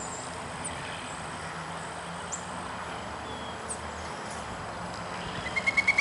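Faint outdoor background with a few soft high chirps, then near the end a woodpecker starts calling: a rapid, even series of loud, high notes, about ten a second.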